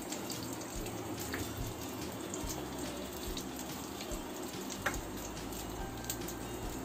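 Cumin and mustard seeds sizzling steadily in hot oil in a frying pan, with a few sharp pops as the seeds crackle: the tempering (tadka) stage, when the seeds are left to splutter in the hot oil.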